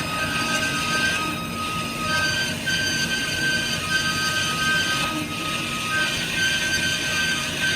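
Berg & Schmid GBS 270 horizontal metal band saw running, with a high-pitched metallic squeal that comes and goes over a steady mechanical noise.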